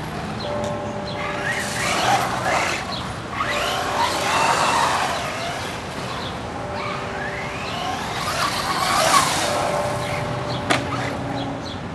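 Traxxas Slash 4x4 electric RC short-course truck driving, its motor whine rising and falling as it speeds up and slows, with bursts of tyre noise. A sharp click comes near the end.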